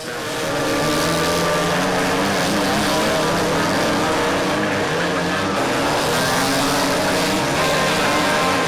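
Several dirt kart engines running hard together as a pack of karts races, their pitches wavering against one another. The sound fades up quickly at the start.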